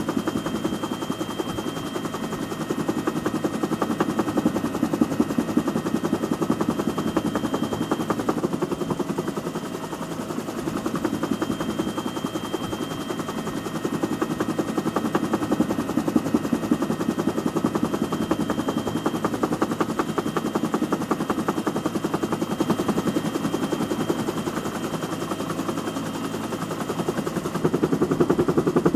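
Bell UH-1 Huey helicopter in flight, heard from inside the cabin: the main rotor's fast, even thudding beat over the engine's steady noise, with a faint high whine coming and going. It gets somewhat louder near the end.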